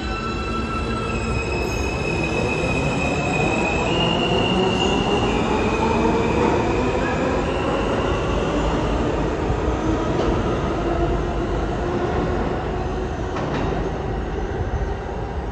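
R160 subway train pulling out of the station and accelerating. Its motor whine rises in pitch, and high steady wheel squeals sound as it takes the curve. The sound eases a little near the end as the train draws away.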